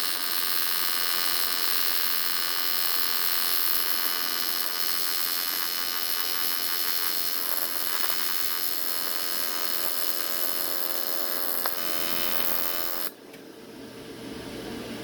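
AC TIG welding arc from an AHP Alphatig 200x on aluminium, a steady, loud electric buzz set by the 65–70 Hz AC frequency, while a bead is run. The arc cuts off suddenly about 13 seconds in, leaving a lower hum.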